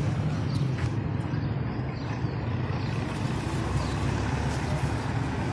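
Steady low outdoor rumble and hiss with no distinct events.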